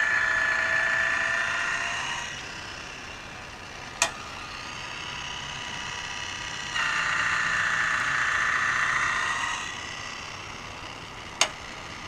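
Automatic bandsaw blade sharpener running: its grinding wheel grinds a sawmill blade tooth twice, each pass about three seconds long, with the motor humming in between and a sharp click about four seconds in and another near the end. The grind depth has just been backed off a quarter turn because the gear motor sounded strained.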